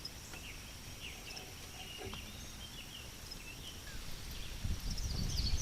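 Birds chirping and calling in short scattered notes over a faint steady high-pitched whine. Near the end, low knocks and rustling grow louder.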